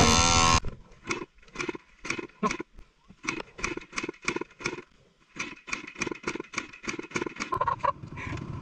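Guitar music cuts off in the first second. After it comes a dirt bike engine on a muddy trail, blipped in short uneven bursts about two or three a second, which grow denser later on and settle into a steadier running sound near the end.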